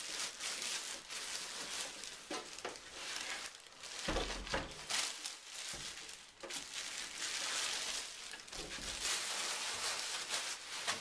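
Plastic wrapping and packing material rustling and crinkling as a PC case is lifted out of its box, with a heavier handling thump about four seconds in.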